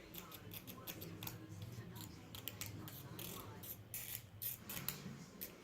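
Many quick, irregular small clicks and rustles of small plastic model-kit parts being handled and fitted together by hand.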